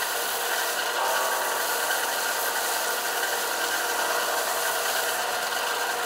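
Bench belt sander running with a primed keyboard case pressed against the belt, sanding its underside: a steady, gritty rasp that stops abruptly right at the end.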